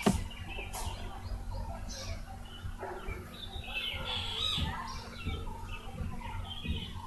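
Birds chirping in the background over a steady electrical hum, with a sharp click at the very start.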